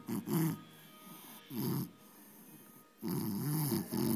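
French bulldog snoring: three snores, a short one at the start, another about a second and a half in, and a longer one about three seconds in.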